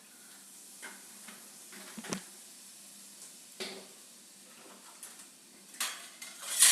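Spoon stirring in a pan of gently sizzling butter-and-cream gravy, with a few sharp clinks of the spoon against the pan and a louder clatter near the end.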